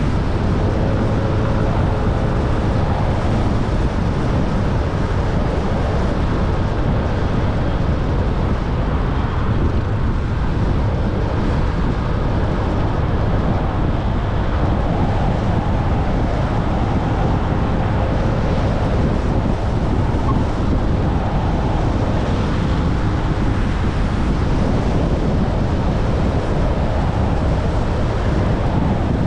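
Motor scooter riding along, its engine running steadily under a constant rumble of wind on the POV camera's microphone.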